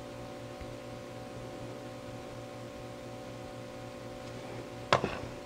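Steady low hum with one sharp click near the end; the slow pour of thick resin itself makes no sound that can be picked out.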